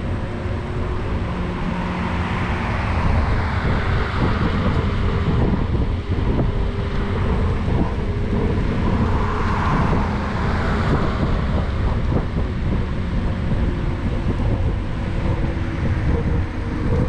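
Wind rushing over the microphone and the rumble of a ride along a paved path, with a faint steady whine. Traffic noise on the road beside swells twice, about three seconds in and again around ten seconds.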